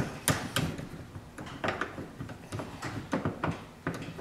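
Irregular knocks and clicks as a wood shaper's spindle assembly is handled and clamped up tight so it can't turn.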